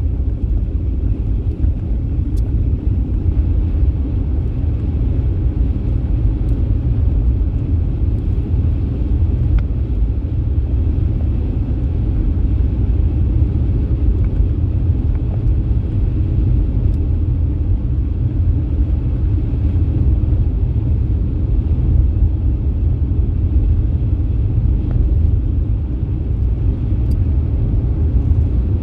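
Steady low rumble of a car driving along a highway, heard from inside the car: tyre and engine noise.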